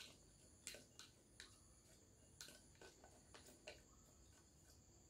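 Faint scattered clicks and taps of herbs being pressed down into a glass jar, about seven in the first four seconds, over a steady high-pitched insect drone.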